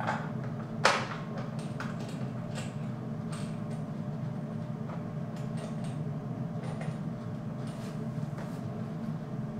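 Scattered light clicks and knocks of metal parts being handled and a bolt fitted by hand on a steel weight bench, with one sharper knock about a second in, over a steady low hum.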